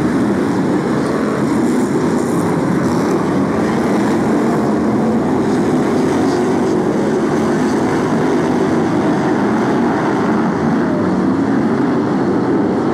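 A pack of BriSCA F1 stock cars' V8 engines running hard together while racing, blending into one loud, continuous, steady drone.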